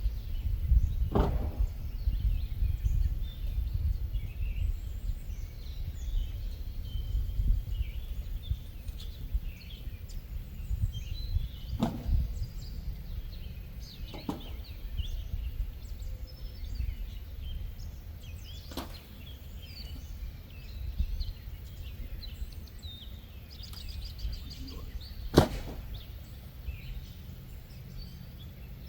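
Wind buffeting the microphone with a low, uneven rumble, birds chirping, and five sharp knocks spaced several seconds apart, the one near the end the loudest.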